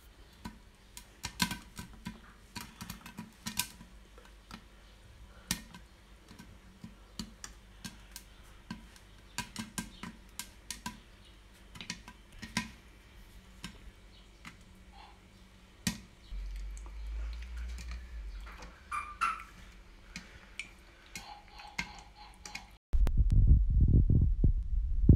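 Popcorn kernels popping in a covered pot: scattered, irregular sharp pops against the lid and pan. Near the end this gives way suddenly to a loud, low, throbbing rumble.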